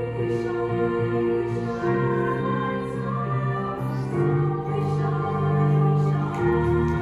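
Small women's choir singing, holding long sustained chords that shift every second or two.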